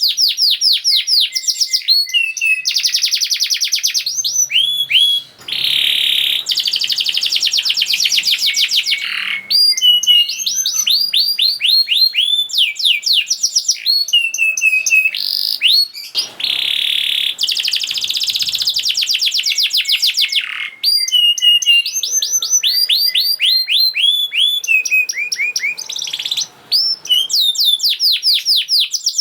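Domestic canary singing a fast, tight song of rapid trills: long runs of quickly repeated sweeping notes, broken by brief pauses about five seconds in and near the end.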